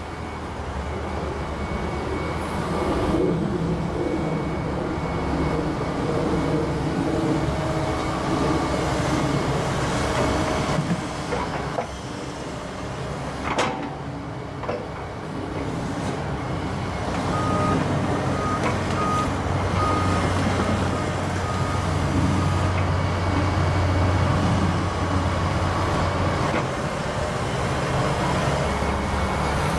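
Volvo ECR145EL excavator's diesel engine working under load, its note swelling and easing with the hydraulic movements. A sharp crack comes about halfway through, and a row of short high beeps a few seconds after.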